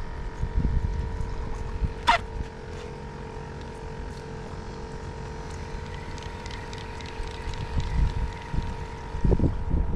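Wind rumbling on the microphone over a steady motorboat engine hum, with a brief falling whistle about two seconds in and a few low thumps near the end.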